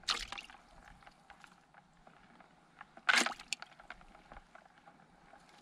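Yabbies being picked out of a wire-mesh net by hand: two short bursts of handling noise, one at the start and one about three seconds in, with faint clicks and scratches between.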